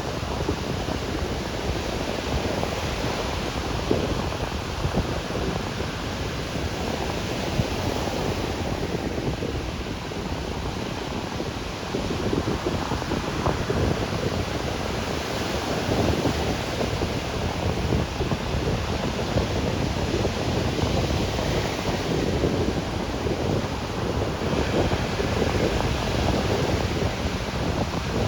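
Ocean surf breaking and washing on a beach, a continuous rush that swells and eases every few seconds and grows louder about halfway through, with wind buffeting the microphone.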